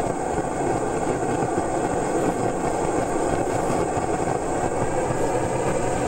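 Steady mechanical drone of an engine or machine running, even and unbroken, with no separate firing beats standing out.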